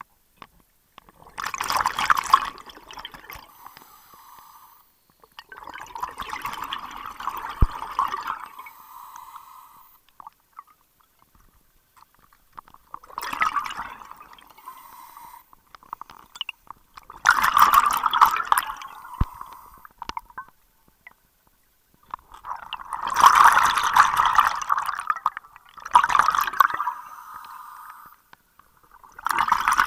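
Scuba diver breathing through a regulator underwater: a bubbling rush of exhaled air every four or five seconds, with quiet between breaths.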